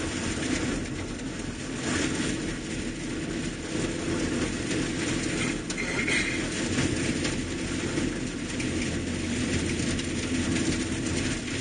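Steady road noise inside a vehicle's cab while it drives along a snow-covered road: engine and tyres running, with light rattling from the cab.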